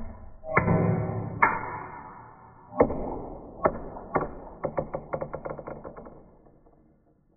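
Metal slugs fired from a small coilgun striking an aluminium cake pan: a series of sharp metallic hits about a second apart, each leaving a ringing that fades, then a quick run of lighter clicks that dies away.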